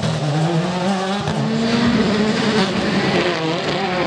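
A World Rally Car's turbocharged four-cylinder engine accelerating hard on a street stage. Its pitch rises, drops at a gear change about a second in, then climbs again.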